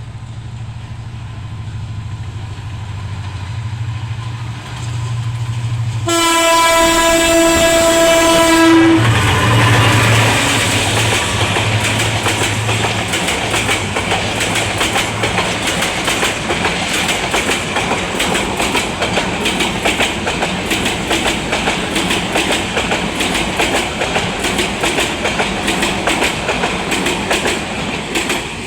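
Paharika Express passenger train passing: the diesel locomotive drones as it approaches and sounds one long horn blast about six seconds in, then runs by close, followed by the coaches' steady clickety-clack over the rail joints.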